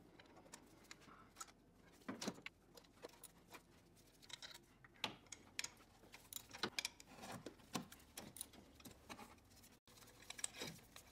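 Faint, irregular metallic clicks and rattles of a ratchet and 12 mm socket working loose the bolts of a serpentine belt tensioner.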